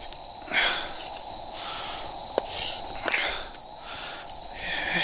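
Crickets trilling in one continuous high tone, with a few short scrapes and one sharp click from a knife slicing boiled chicken on a wooden cutting board.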